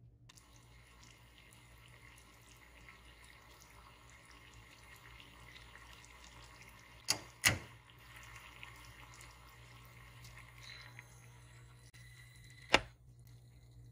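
Simple syrup of sugar and water boiling in a saucepan, a steady bubbling hiss. Two sharp knocks about seven seconds in and one more near the end, after which the bubbling stops.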